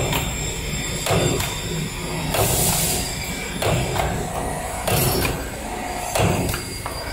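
Rotary wire-forming machine running through its cycle of feeding and cutting straight wire: a steady mechanical whir with a sharp knock about every 1.2 seconds as each length is cut, and a short hiss a little past two seconds in.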